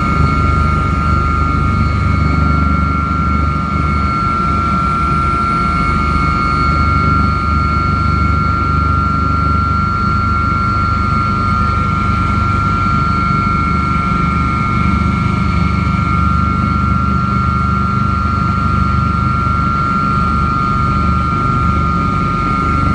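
Helicopter in flight, heard from inside the cabin: a loud, steady low rotor rumble with a pulsing beat under a constant high-pitched whine from the turbine and gearbox.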